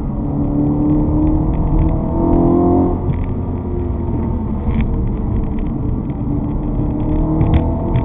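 A vehicle engine heard on board during a test drive, pulling with a rising pitch, then dropping abruptly about three seconds in as it changes gear, and climbing again near the end over a steady low road rumble.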